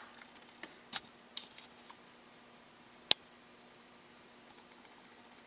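A few light clicks and taps from a plastic N-scale model auto carrier being handled, with one sharp click about three seconds in, over a faint steady hum.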